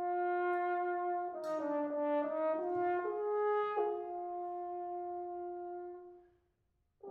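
French horn playing a soft, exposed passage in a brass quintet: a held note, then a short moving melody with a second brass voice alongside, settling on a long held note that fades out about six seconds in.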